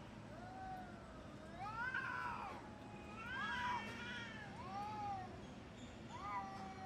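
Domestic cats yowling in a fight standoff: a string of drawn-out, rising-and-falling wails, one about every second, loudest around two and four seconds in, with a long held wail near the end.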